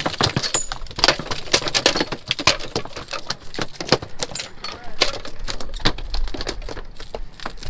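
Rapid, irregular clattering and knocking, several hard clicks a second.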